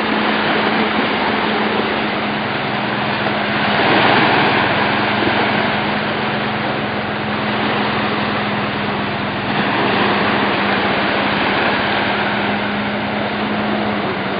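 Motorboat engine running steadily with a constant hum, over a rush of wind and water noise; it swells briefly about four seconds in.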